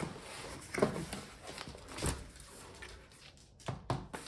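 Handling noise as a metal honeycomb laser-bed platform is lifted out of its cardboard box: soft rustling with a few dull knocks, including two close together near the end.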